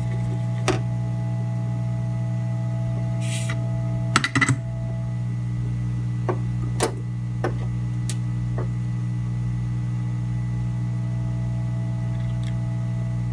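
Steady low electrical hum from bench equipment, with a few light clicks of metal tools touching the circuit board: a quick cluster about four seconds in, then several single taps.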